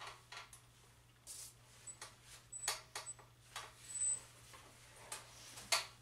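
Faint handling noise: a dozen or so short, irregular rustles and scuffs as a paper manual and a smartphone are moved about in the hands.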